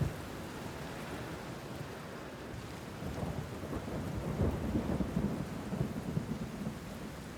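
Steady rain, with a low roll of thunder swelling from about three seconds in and fading near the end.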